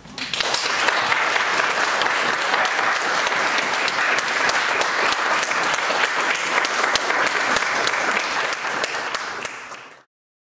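Audience applauding, breaking out at once and cutting off suddenly near the end.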